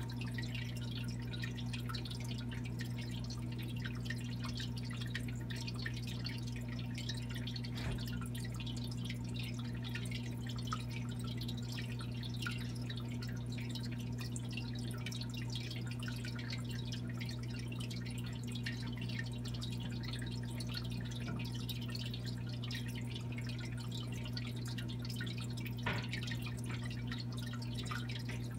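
Aquarium filter running: water trickling and dripping over a steady low pump hum. A couple of faint clicks come through, one about eight seconds in and one near the end.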